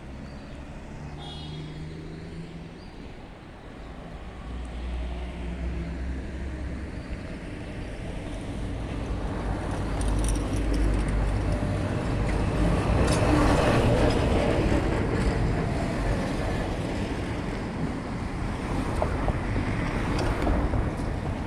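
Road traffic: a vehicle passing on the road, its engine and tyre noise swelling to a peak a little past halfway and fading again, over a steady low rumble.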